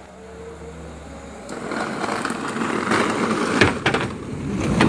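Small hard wheels of a child's ride-on drift trike rolling and scraping across concrete. The sound grows louder from about a second and a half in, with a couple of sharp knocks.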